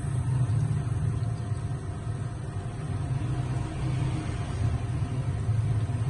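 Two-group commercial espresso machine's pump running with a steady hum while water pours from both group heads, with no portafilters fitted, into the drip tray.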